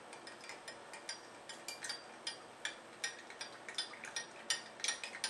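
Spoon clinking lightly and irregularly against a glass measuring cup, a few small clinks a second, while stirring honey until it dissolves in hot rosemary tea.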